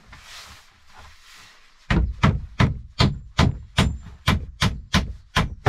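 A hammer striking wooden bed planks in a steady run of about ten blows, nearly three a second, starting about two seconds in.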